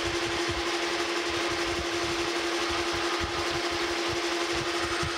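Metal lathe running, its spindle turning round bar stock, with a steady whine of one pitch over a mechanical hum and hiss.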